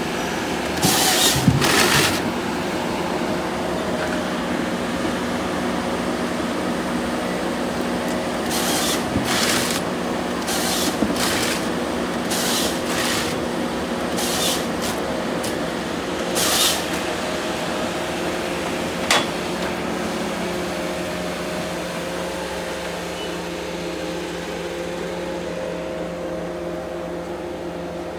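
PONSSE Ergo forest harvester running steadily, its engine and hydraulics giving a constant hum with several held tones. In the first half, short hissing bursts break in several times, and there is one sharp click around the middle. The sound becomes a little quieter and lower in the last third.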